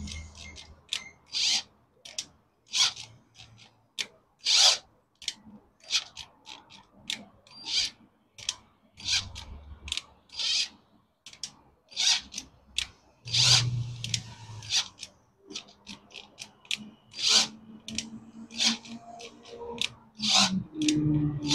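Hand ratchet bit holder turning a drill bit into the stripped M6 screw hole for the oil filter cover on a Yamaha Y16 crankcase, cutting the hole out for a thread-repair insert. It makes short, uneven strokes of metal scraping and ratchet clicks, about one a second.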